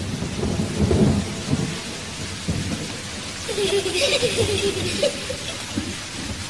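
Rumbling, crackling noise of wind buffeting a phone's microphone outdoors, with scattered low thumps.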